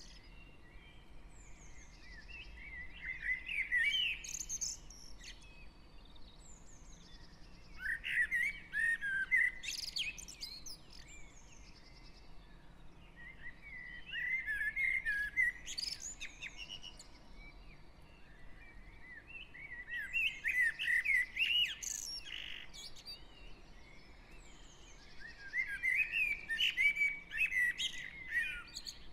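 Garden songbird singing in a dawn chorus: five bursts of fast warbling, twittering song, each two to three seconds long, repeated every five or six seconds with gaps between. A faint low hum of distant traffic lies underneath.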